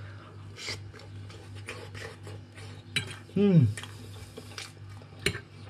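Metal fork scraping and clicking on a ceramic plate as it cuts into a meatball in sauce. A brief voice sound falls in pitch about three and a half seconds in.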